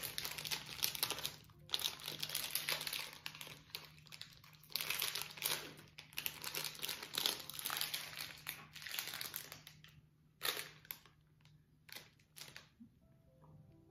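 Plastic candy wrapper of a licorice-stick packet crinkling and rustling as it is handled and pulled open with hands and teeth. Dense crackling for about ten seconds, thinning to a few separate crinkles near the end.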